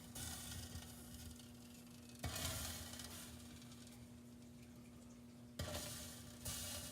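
Water dripping inside a Rheem gas water heater's combustion chamber, sizzling four times, each sizzle starting suddenly and fading over a second or so, over a steady low hum.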